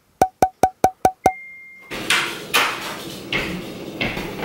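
Six short electronic beeps, about five a second, the last running into a higher steady tone for about half a second. Then a person moves about, with footsteps and rustling knocks.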